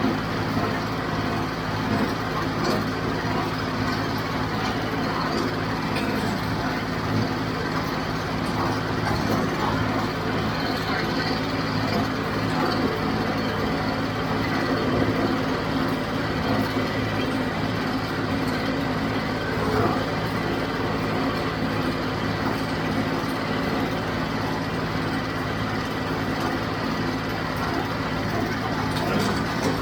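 Diesel engine of a John Deere 5055 tractor running steadily at working speed while it drives a John Deere 348 small square baler, with the baler's mechanical clatter mixed over the engine.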